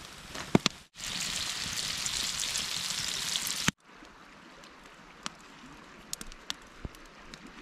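Fish fillets frying in oil in a metal tray over a campfire: a loud, steady sizzle that cuts off abruptly a little under four seconds in. After that comes a much quieter hiss with a few faint ticks.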